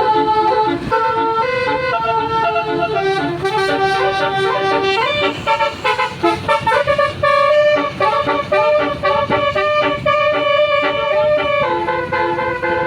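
Telolet basuri musical multi-tone horn on a tour bus playing a melody of stepped notes, several tones sounding together, with quicker choppier notes in the middle, over the low hum of the bus engine.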